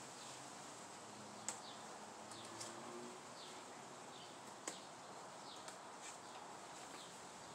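Faint outdoor background with small birds chirping in short falling notes every second or so, and a couple of small sharp snaps as tomato leaves and side shoots are pinched off by hand.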